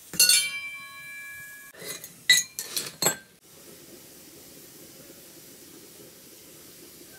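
Metal cookware clanking: a steel vessel struck once and ringing for over a second, then a quick run of clatters about two to three seconds in. After that only a faint, steady low noise remains.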